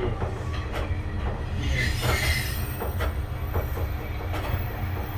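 KiHa 2300 diesel railcar heard from its cab while running along the track: a steady low rumble with irregular clicks of the wheels over rail joints. From about two seconds in, a high wheel-and-brake squeal creeps in as the car begins braking for the station.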